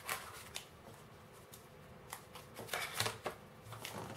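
Soft rustling and a scattered handful of light clicks as a smartphone's cardboard box and its plastic-wrapped earphone and cable accessories are handled.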